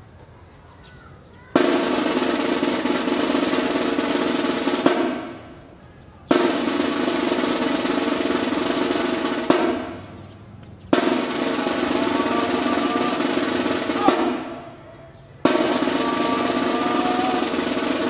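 Military snare drums playing four drum rolls, each starting sharply, lasting about three and a half seconds and ending on an accented stroke that rings off.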